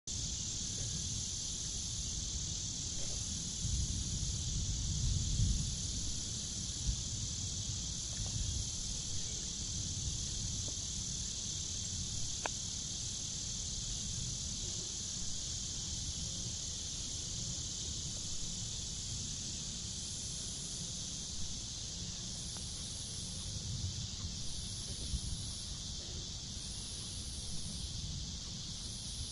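Forest ambience: a steady, high insect chorus, with a still higher trill that comes and goes in spells, over a low rumble that swells a few seconds in. One sharp click about twelve seconds in.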